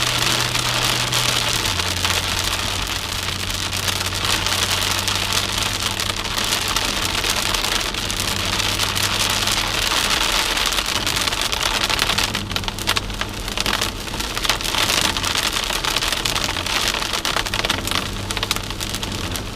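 Rain hissing on a moving car and its tyres on the wet road, over the steady low hum of the engine, which drops in pitch about two seconds in. A scatter of sharp ticks comes about two-thirds of the way through.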